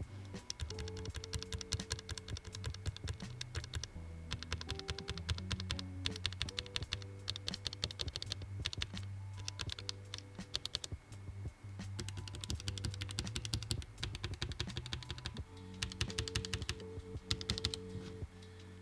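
Fast typing on a NuPhy Air 75 V2 low-profile mechanical keyboard: quick runs of key clicks broken by short pauses, over background music.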